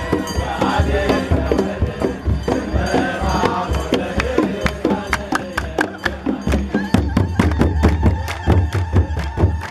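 Eritrean Orthodox hymn sung by a crowd to kebero drums and hand clapping. The singing is clearest in the first few seconds; from about halfway the clapping and drum strokes take over in a fast, even beat.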